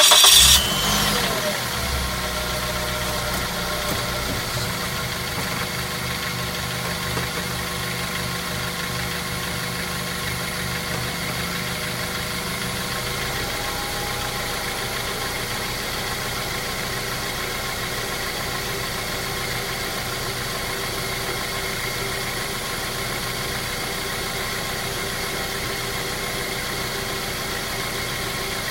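Mazda 3 engine catching with a brief loud burst as it starts, then idling steadily.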